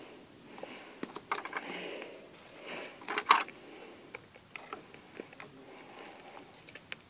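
Light clicks and taps of small plastic toy pieces being picked up and set down, with one sharper tap a little after three seconds in.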